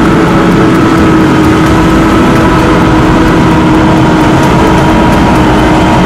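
Case IH Optum 300 CVX tractor's six-cylinder diesel engine running steadily under load as it pulls a six-furrow Kuhn Vari-Master reversible plough through the soil.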